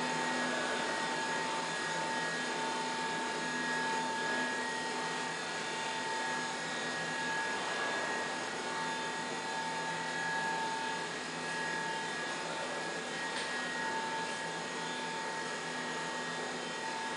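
DXDZ 450 horizontal flow-pack wrapping machine with its automatic biscuit-feeding conveyors running: a steady mechanical whir with a constant high whine and a low hum underneath.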